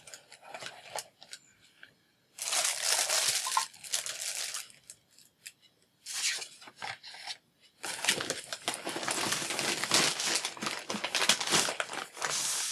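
Plastic packaging crinkling and rustling as items are handled and moved about, in three bursts, the last and longest filling the second half.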